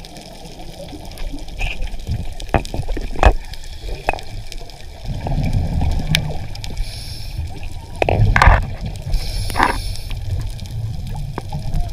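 Muffled underwater sound picked up through a camera's waterproof housing: a low rumbling wash of water with gurgling and bubbling, and a few sharp knocks on the housing.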